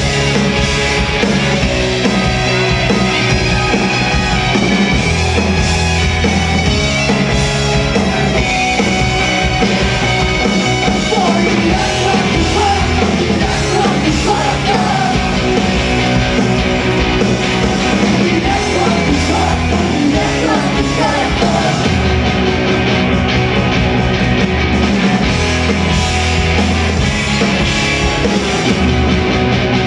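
Indie rock band playing live: electric guitars and a drum kit at full volume.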